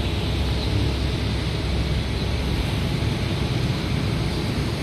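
Steady low rumble with a hiss over it, even throughout and without distinct events.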